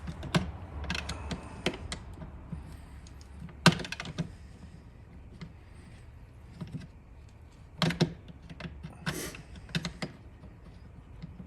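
Irregular clicks and knocks of a screwdriver and wiring being worked at a Tesla Wall Connector, with a few sharper knocks and a brief rasp about nine seconds in.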